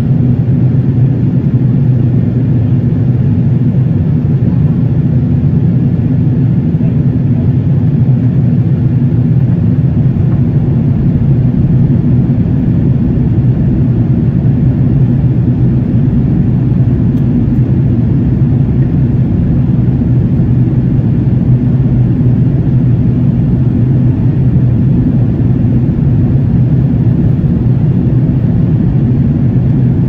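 Jet airliner in cruise heard from inside the cabin: a steady, loud drone of engine and airflow noise, a low rumble with a few steady low hums in it.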